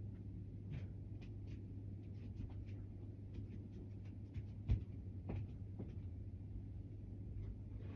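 Steady low hum with many faint scattered clicks and small rustles, and one sharper thump a little under five seconds in.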